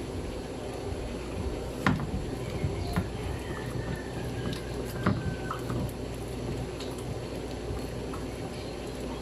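Spatula pressing and folding soft fresh butter on a wooden board, a wet squishing as the leftover milk is worked out, with a few sharp knocks of the spatula, the loudest about two seconds in and again about five seconds in, over a steady low background noise.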